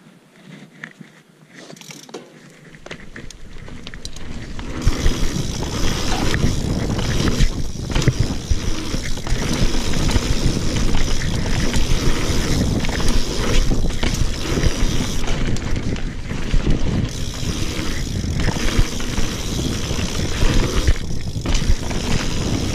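Mountain bike ridden down a dirt singletrack, heard from a camera mounted on the rider. A few light clicks at first, then the sound builds as the bike picks up speed. From about five seconds in there is a steady loud rush of tyre rumble, rattling over bumps and wind on the microphone.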